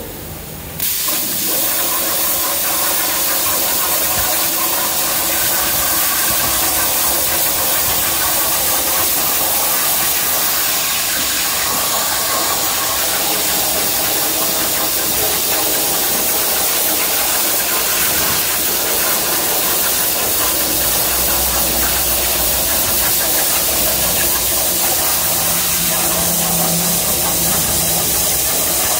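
CNC plasma cutter's torch striking its arc about a second in, then a loud, steady hiss as it cuts through steel plate.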